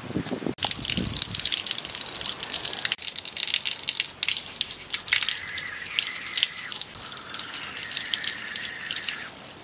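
Water running from an outdoor tap and splashing onto a turmeric leaf as hands rinse and rub it.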